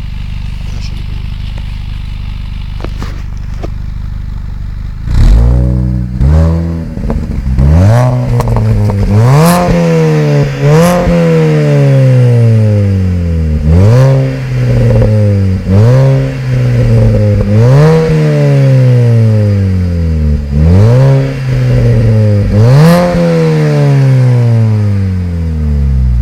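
Mini John Cooper Works R53's supercharged 1.6-litre four-cylinder engine idling steadily, then revved about ten times in quick blips, each rev rising sharply and falling slowly back toward idle.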